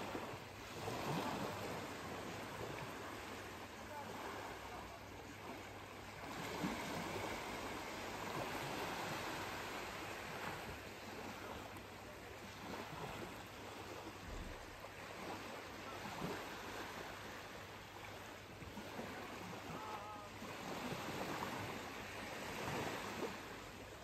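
Small waves lapping and washing onto the beach, swelling and easing every few seconds.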